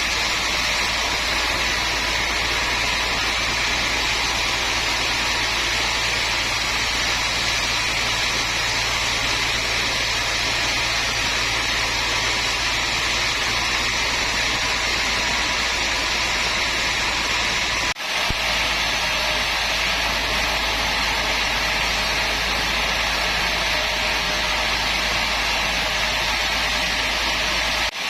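Woodworking machinery running steadily: an even mechanical noise over a constant low hum, with no cutting strokes standing out. It breaks off for a moment about eighteen seconds in.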